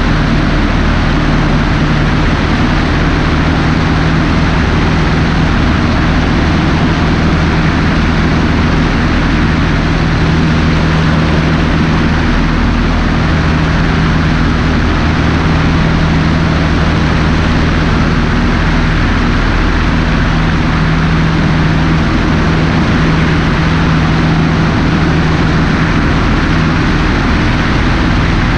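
Cessna 150 in flight: its four-cylinder Continental O-200 engine and propeller making a steady drone, heard from a camera on the wing with a strong, even rush of air over it.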